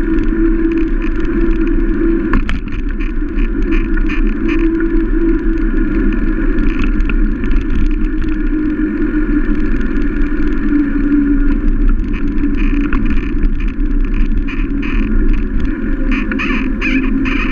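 Steady wind rush and rolling road noise on a bicycle-mounted action camera riding on a wet asphalt road, with light rattles from the bike over the road surface.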